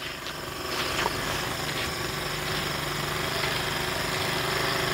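An engine running steadily at a low, even pitch, getting a little louder about a second in.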